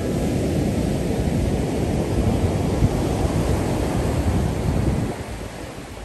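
Wind buffeting the microphone: a gusty low rumble that eases about five seconds in.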